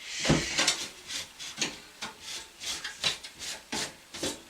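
Handling noises from work on a desktop computer's insides: irregular rubbing, scraping and light clicks of parts being fitted by hand.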